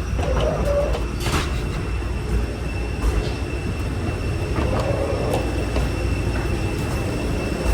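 Steady low rumble with a thin, constant high whine over it: the ground noise of a parked airliner heard from the boarding bridge.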